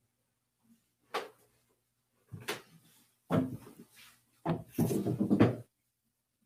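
Handling knocks and clunks close to the microphone: light taps about a second apart at first, then heavier, louder bumps from about three seconds in, ending in a clattering rumble about a second long.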